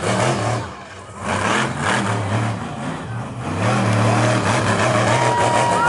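Overkill Evolution monster truck's engine revving hard, the throttle easing off about a second in and then opening up again, held high and steady over the last couple of seconds.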